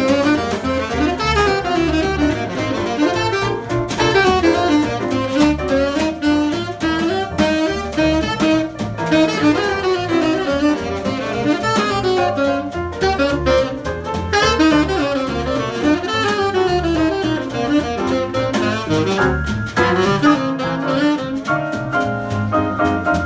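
Live Afro-Latin jazz combo: a saxophone solos in fast running lines over double bass, drums and guitar, with a long held note near the end.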